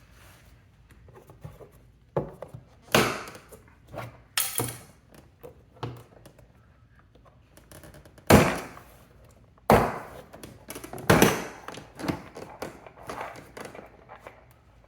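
Plastic push-in clips of a car's rear door trim panel popping out of the door as the panel is pried and lifted off: a string of sharp loud snaps, about six strong ones with smaller cracks between. The clips are releasing, not breaking.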